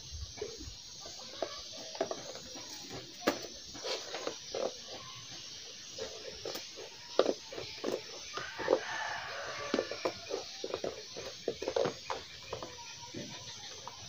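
Scissors snipping through a sheet of black sheeting, a run of short, irregular cuts.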